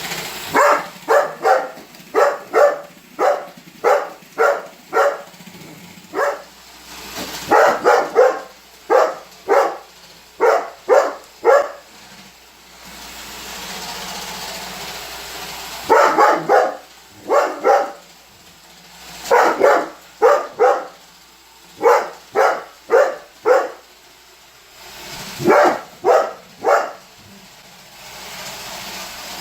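Weimaraner barking repeatedly in volleys of several quick barks, with pauses of a few seconds between volleys. A Roomba robot vacuum runs with a steady whir that shows in the gaps.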